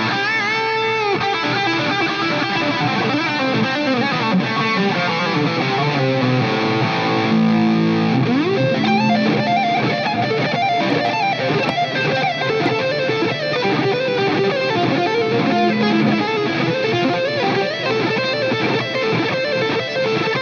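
Live electric guitar solo through an amplifier, a continuous stream of notes with no drums behind it.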